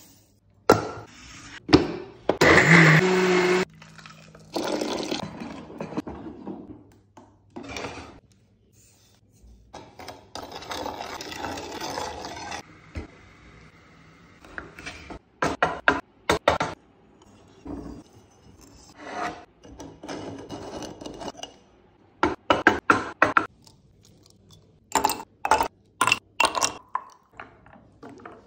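Kitchen food-preparation sounds in short separate bits: scraping and stirring, a few seconds of steady rushing noise, and bursts of sharp clicks and knocks from utensils and cups.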